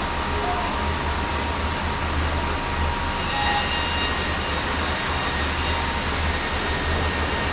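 Sawmill running steadily with a low hum; about three seconds in, a high metallic whine of several tones joins in as the saw works through a large red oak log.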